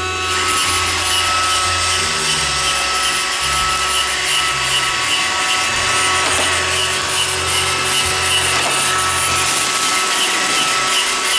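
iRobot Roomba 611 robot vacuum running a cleaning cycle: its vacuum motor and brushes give a steady whine and hum as it drives across the floor.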